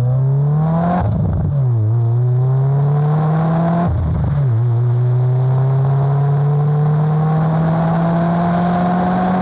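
Subaru turbocharged flat-four engine and exhaust accelerating hard through the gears. The revs climb, drop sharply at a gear change about a second in and again about four seconds in, then climb in one long pull.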